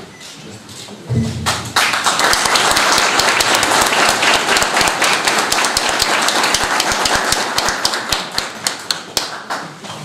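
Audience applauding: a dense burst of clapping starts about a second and a half in and thins to a few scattered claps near the end.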